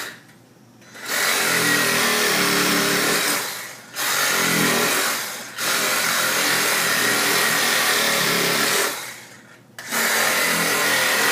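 Low-power cordless reciprocating saw running in several bursts of a few seconds with short pauses between, its torch-heated blade cutting rubber nubs off a tire.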